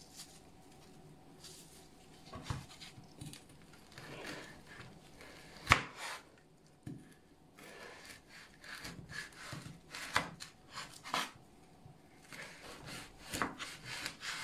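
Plastic cling film being peeled and rubbed off a frozen fish roll, with one sharp knock on the wooden board about six seconds in. Then a kitchen knife cuts through the frozen mackerel roll, its blade knocking on a wooden cutting board in a run of strokes.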